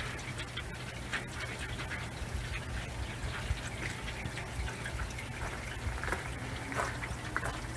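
Used engine oil, flushed and dirty, pouring from the oil pan drain hole into a drain pan: a steady liquid splashing with scattered small ticks.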